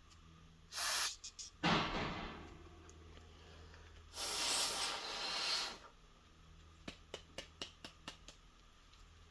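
Aerosol carburetor cleaner spraying in three hissing bursts, the last about a second and a half long, followed by a quick run of light clicks.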